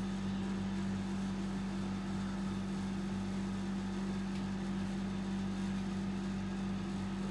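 Steady low electrical hum, one even tone with its overtones, holding level throughout.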